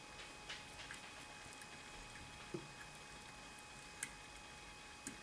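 Faint scattered clicks and light handling noise from small plastic jumper-wire connectors being pushed onto a circuit board's header pins, the sharpest click about four seconds in.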